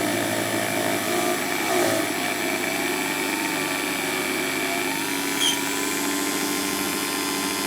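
Dremel 4000 rotary tool running steadily with a felt polishing wheel, buffing a small opal with cerium oxide compound; a steady whine.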